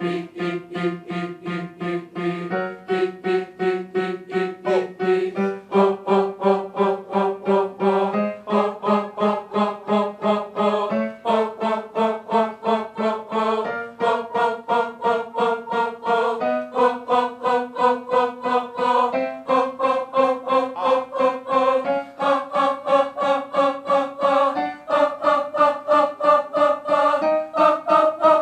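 Chamber choir singing a diaphragm-support exercise: rapid, short, detached pulses on one note, the pitch stepping up by a half step every two to three seconds.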